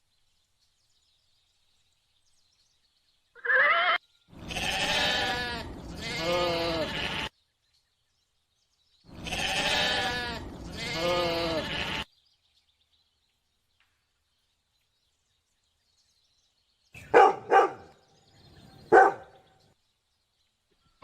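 Bleating of a farm animal such as a goat or sheep: a short call, then a long wavering two-part bleat, the same bleat heard again a few seconds later. Near the end come three short sharp calls.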